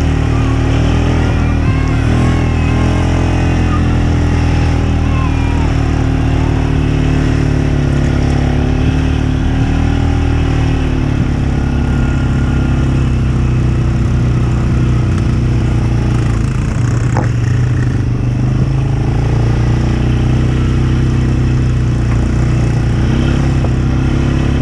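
Off-road vehicle engine running loudly and steadily, its pitch rising and falling a little as it drives. A single sharp knock comes about seventeen seconds in.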